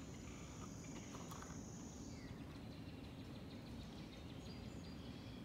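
Quiet outdoor ambience: a steady high insect buzz for about the first two seconds over a low steady rumble, with a few faint chirps.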